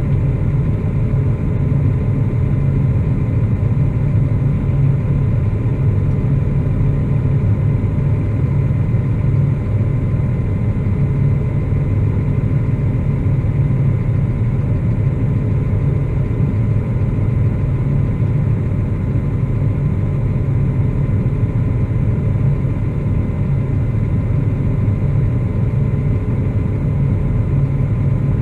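Claas Axion 850 tractor's diesel engine running at a steady speed, heard from inside the cab, with a faint steady high whine over it.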